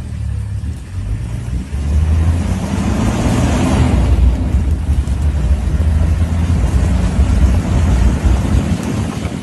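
Safari vehicle's engine running with a steady low rumble, and a rushing noise that swells about three to four seconds in.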